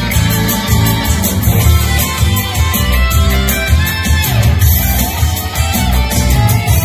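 Recorded pop song played loud, in an instrumental passage without singing, over a steady drum beat.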